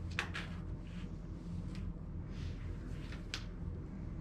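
Room tone: a steady low hum with a few faint, short clicks.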